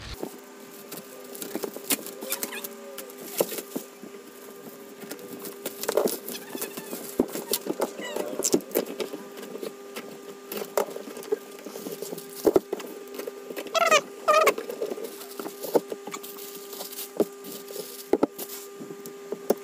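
Parcel being unwrapped and opened: plastic and bubble wrap crinkling, then a taped cardboard box cut open with a utility knife and handled, giving many small crackles, rustles and knocks. Two short squeals come a little past the middle, over a faint steady hum.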